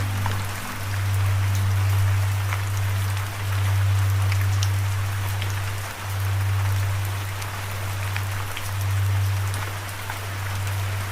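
Steady rain hissing, with individual drops ticking sharply through it. Under it runs a low droning hum that swells and dips every two to three seconds.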